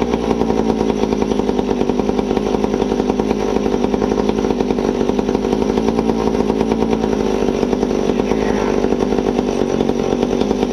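McCulloch Pro Mac 1010 two-stroke chainsaw engine running steadily at an even speed.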